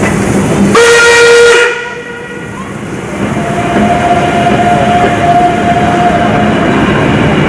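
Steam locomotive whistle sounding a short, loud blast of just under a second with a rush of steam hiss as the train departs. About two seconds later a quieter, higher whistle is held for about three and a half seconds over the steady hiss of steam.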